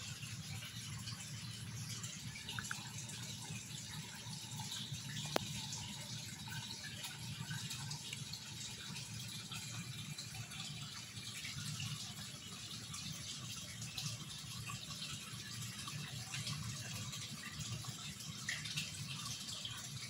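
Water trickling and splashing steadily in a fish pond, with many small pops and ticks from the surface over a low steady hum, and one sharp click about five seconds in.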